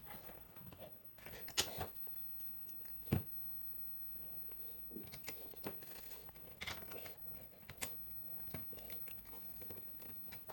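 Scattered light clicks and taps of small plastic and metal parts of a PlayStation 2 disc drive being handled and taken apart by hand, a few sharp ones standing out among fainter rustles.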